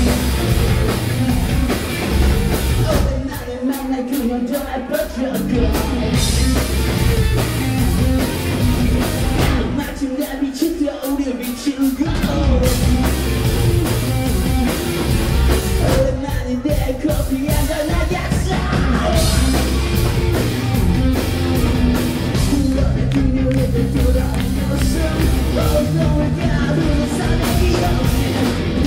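Rock band playing live, with electric guitars, bass and a drum kit. The low end drops out twice for a couple of seconds, about three seconds in and again about ten seconds in, then the full band comes back in.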